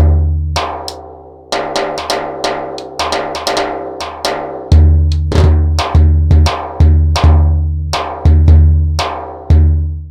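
Sampled Indian hand-drum rhythm from the SwarPlug 4 software instrument: sharp strokes with ringing pitched tones over deep, sustained bass strokes, two or three a second, cutting off suddenly at the end.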